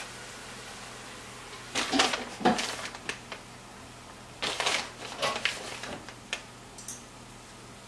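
Crinkling and rustling of a plastic shredded-cheese bag as a hand reaches in and pinches out shredded cheddar. It comes in two bouts, about two seconds in and again around five seconds in.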